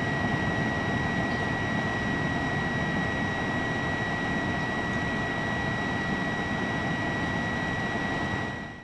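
BioLite CampStove's built-in fan running steadily with a high-pitched whine, forcing air into the wood fire burning in its chamber. The sound fades out near the end.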